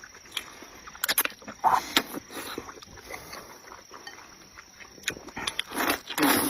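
A person eating close to the microphone: wet chewing and mouth noises, with a few sharp clicks about a second in and a louder noisy slurp near the end.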